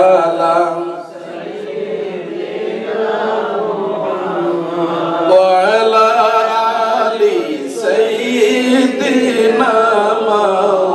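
Men's voices chanting a devotional recitation, with long held notes that slide up and down.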